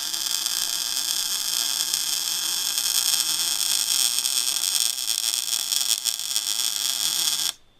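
Electric power tool cutting a piece of steel: a steady high motor whine mixed with harsh cutting noise, which stops abruptly near the end.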